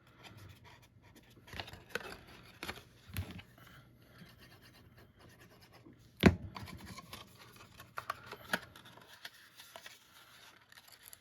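Cardstock being handled and pressed by hand while a small paper box is folded and glued, with scattered rubbing and scratching of paper and a few light taps. One sharp knock about six seconds in.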